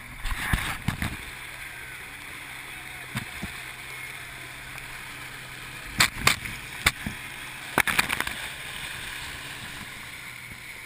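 Rushing and sloshing river water around a kayak, with a handful of sharp knocks and splashes about six to eight seconds in.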